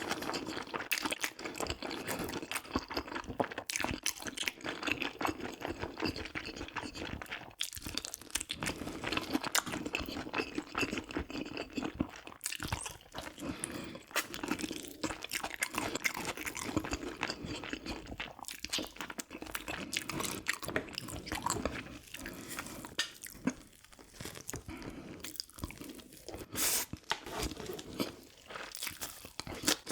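Close-miked chewing and crunching of a person eating a meal of soy-braised pig's feet and kimchi, with many small irregular mouth clicks.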